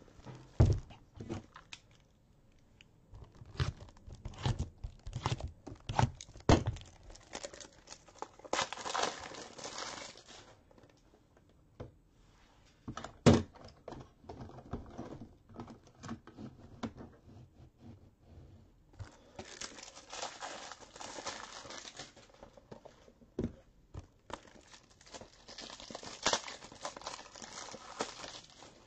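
Plastic shrink wrap crinkling and tearing in three spells, with scattered knocks of packages and supplies being handled and set down on a table; the loudest knock comes about halfway through.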